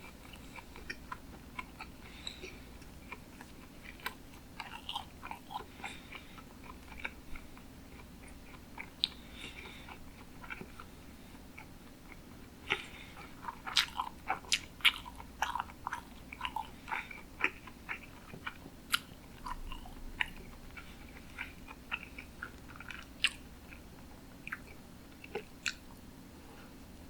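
Close-miked chewing of sushi, with wet mouth smacks and clicks that come irregularly and most thickly around the middle.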